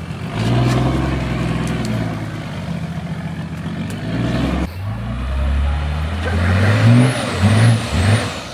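A 4WD's engine pulling steadily under load, dipping briefly about halfway, then revved in several quick blips near the end.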